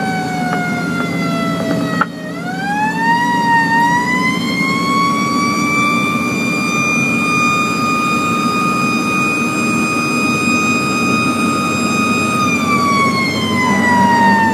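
Fire engine's siren heard from inside the cab. Its wail falls, winds up again about two seconds in to a high steady tone, holds, and starts to fall near the end. The truck's engine and road noise rumble steadily underneath.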